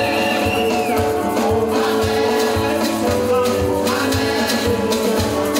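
Live gospel praise music: voices singing over a keyboard and a steady drum beat, with a shaker rattling along.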